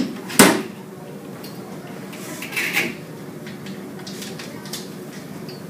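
Knocks and clinks of a ripple tank's metal stand and glass tray being set down on a table and fitted together: one sharp knock about half a second in, a short rattling clatter around two and a half seconds in, then a few light clicks.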